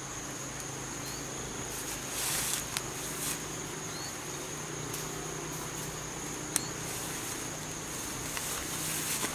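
Insects droning steadily on one high note, with a few short rising chirps and a couple of brief rustles.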